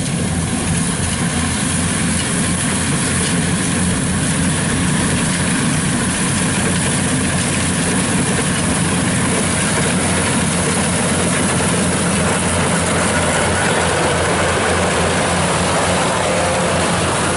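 Kubota DC-95 combine harvester running steadily at working speed while cutting rice: its diesel engine and the cutting and threshing gear make a constant, loud drone.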